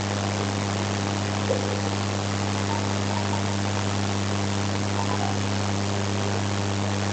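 Steady low electrical hum with a constant hiss.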